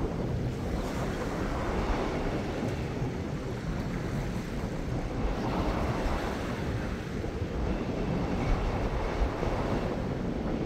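Small ocean waves lapping and breaking against the edge of a rocky reef shelf, a steady washing hiss, with wind buffeting the microphone.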